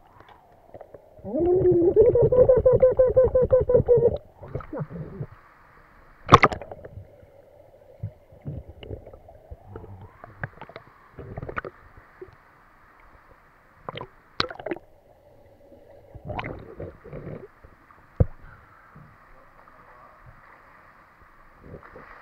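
Underwater sound picked up through the camera: a loud rush of bubbling for about three seconds near the start, followed by a faint steady hum broken by scattered sharp clicks and knocks.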